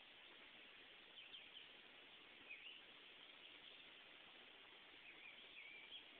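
Faint bird chirps, a few short calls here and there, over a steady low hiss of outdoor background.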